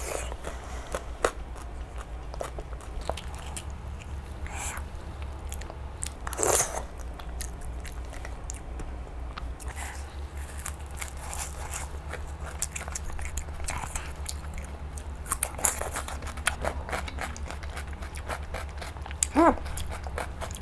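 Close-miked eating: biting, chewing and wet mouth clicks with occasional crunches as duck egg and green chilies are eaten, over a steady low hum.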